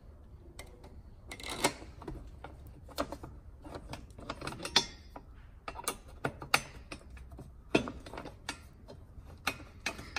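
Hex key turning a bolt by hand in a steel pannier-rack mount: irregular metallic clicks, taps and short scrapes as the key and bolt shift against the bracket.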